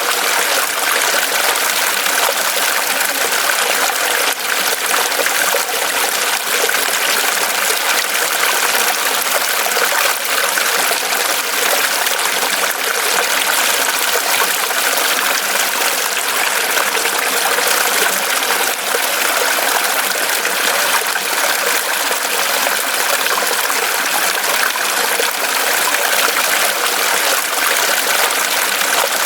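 Mountain stream running over rocks, a steady rush and trickle of water.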